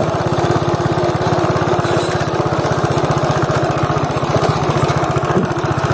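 Small engine idling steadily close to the microphone, with a fast, even chugging beat.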